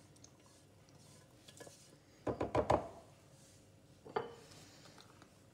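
Stainless-steel cooking-robot bowl and spatula clattering: a quick run of metal knocks about two seconds in as the bowl is set back into its base, then a single clank with a short ring about four seconds in.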